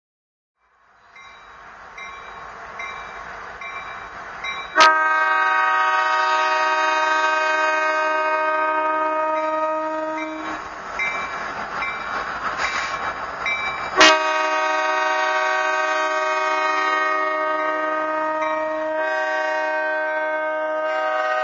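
BNSF diesel locomotive's multi-chime air horn sounding two long blasts, the first about five seconds in and the second from the middle on, its chord changing near the end, over the rumble of the approaching freight train. Between blasts a faint ringing repeats about every half second, the locomotive bell.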